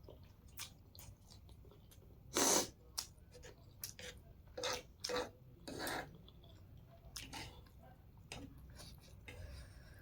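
Close-miked chewing of hakka noodles, with a handful of short, louder mouth noises; the loudest comes about two and a half seconds in.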